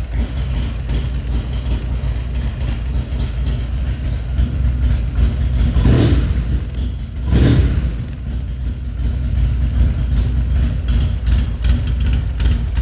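Buell motorcycle engine idling, revved twice in quick succession near the middle.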